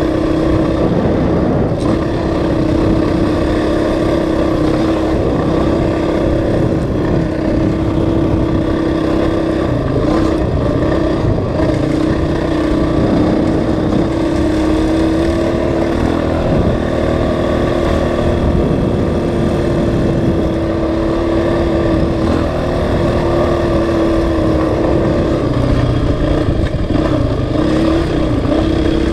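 Honda CRF450X dirt bike's single-cylinder four-stroke engine running at a fairly steady cruise on a dirt road, its pitch rising and dipping slightly now and then.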